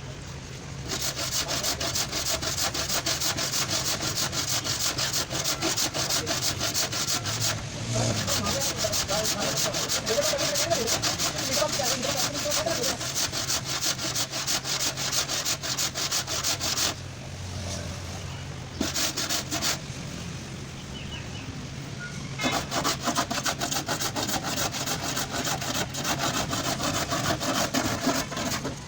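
Rapid rasping strokes of sanding on a car body panel, with a short pause about two-thirds of the way through before the strokes pick up again.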